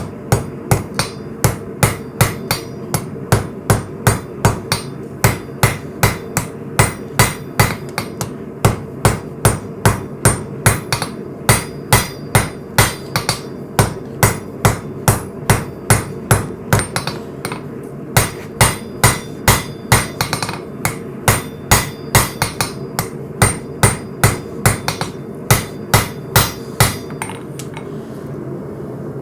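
Hammer forging hot coil-spring steel on an anvil: a long, even run of ringing blows at about two a second that stops shortly before the end. A steady drone runs underneath.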